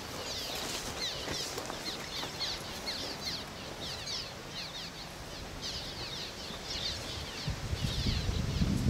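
A colony of swallows calling around their mud nests: many short, falling chirps in quick succession. A low rumble rises near the end.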